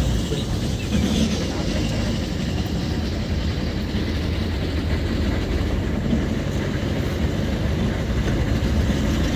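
A vehicle on the move: steady road and engine noise with a strong low rumble.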